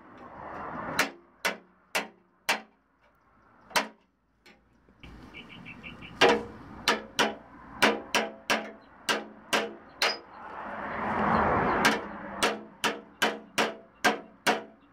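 Hammer-and-dolly bodywork on a Lexus SC300's steel front fender: a body hammer striking the sheet metal against a dolly held behind it, sharp metallic taps with a short ring. The blows come in quick runs with a break of a couple of seconds about a third of the way in. Twice a rushing hiss swells up beneath the blows.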